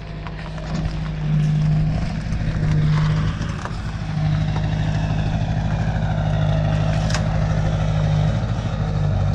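Pickup truck engine idling close by, a steady low hum that swells and eases a few times, with one sharp click about seven seconds in.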